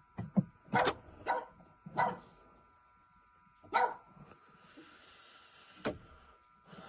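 A dog barking in short sharp barks, about seven of them at irregular gaps, several in the first two seconds and the last a little before the end.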